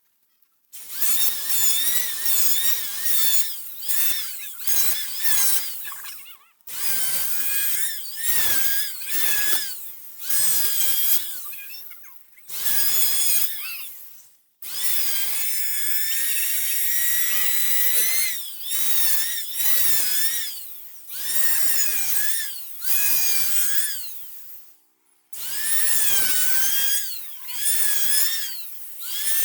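Electric power tool cutting or boring into wood in repeated short bursts. Its motor whine dips in pitch as it takes load and rises again as it frees, with one longer steady run about halfway through.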